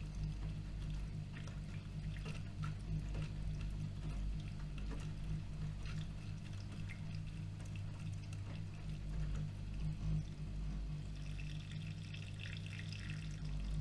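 AEG Öko-Lavamat washing machine mid-wash: water sloshing and splashing in the turning drum over a steady low hum, the splashing livelier near the end.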